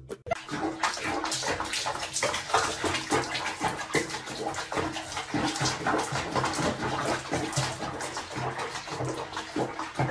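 Water splashing and bubbling in a bathroom sink with a cat sitting in it: a steady, dense patter of small splashes.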